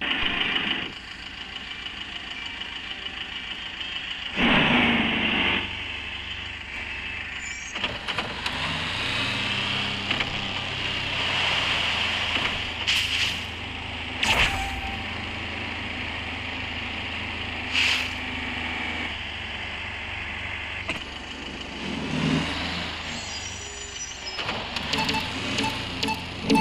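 4x4 vehicle driving over rough ground: the engine runs steadily, with a few louder surges and several sharp knocks and jolts.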